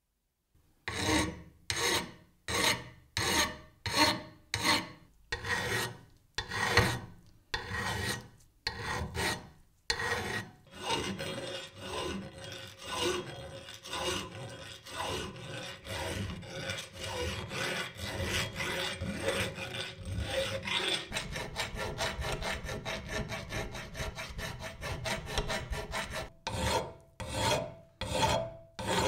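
Hand files rasping on the rough, sandblasted cast-metal body of an antique tap wrench held in a vise, a round file worked into an opening and a flat file along an arm. Slow, even strokes at first, then quicker strokes that run together into near-continuous rasping through the middle, and separate strokes again near the end.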